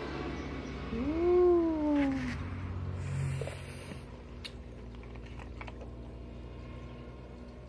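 A single drawn-out voice-like call, rising then falling in pitch, starts about a second in and lasts a little over a second, over a low steady hum. A few light clicks follow as the metal watch and its box are handled.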